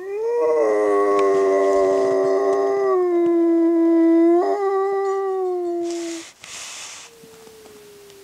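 A dog howling: one long howl of about six seconds, holding a steady pitch with a brief upward break about four and a half seconds in. Two short hisses follow.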